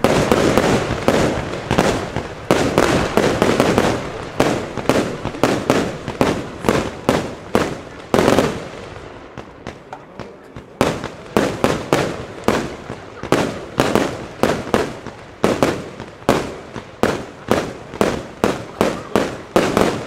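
A consumer firework battery (cake) fires in a rapid series of shots, about two to three a second, each a sharp launch or burst bang. Denser crackling volleys come at the start and again about eight seconds in.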